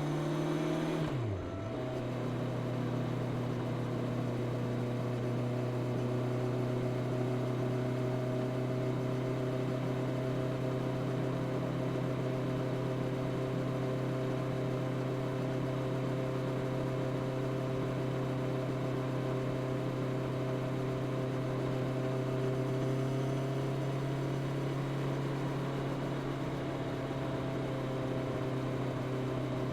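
Honda CB650R's inline-four engine through its stock exhaust, with a quick upshift about a second in where the pitch dips sharply and recovers. It then cruises at steady revs, under a constant rush of wind.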